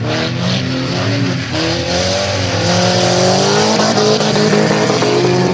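Several stock-car engines revving hard at once, their pitches rising and falling as the cars race on a dirt track; the engine noise grows louder about two seconds in.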